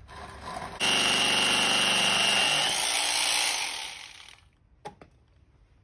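Corded jigsaw switched on about a second in, running and sawing through weathered wood for about two and a half seconds, then winding down as it is switched off. A single sharp click follows near the end.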